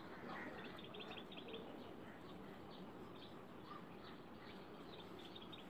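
Faint bird chirps over quiet background hiss, with a quick run of short chirps about a second in and a few more scattered later.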